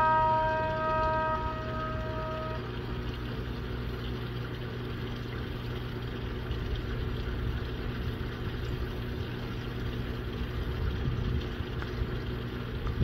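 An outdoor warning siren holding one steady tone, fading out within the first couple of seconds. After it, a steady low hum runs on under a noisy background.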